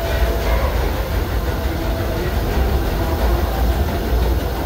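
Disneyland Railroad train, the Excursion 3 passenger car behind the steam locomotive Ernest S. Marsh #4, running steadily along the track: an even rumble of wheels and car heard from on board.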